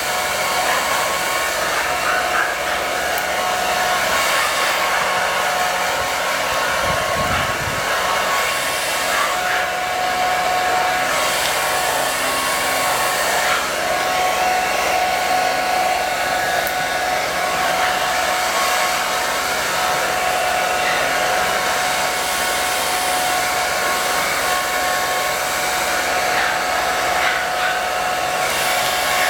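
Handheld hair dryer running steadily, blowing air over a wet dog's coat: a constant rush of air with a steady whine.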